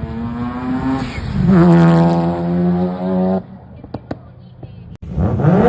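Mazda RX-7 two-rotor rotary engine running with a steady pitched exhaust note. About a second in it revs up quickly and holds a higher, louder note, then cuts off abruptly. A quieter stretch with a few clicks follows, and a new loud burst starts suddenly near the end.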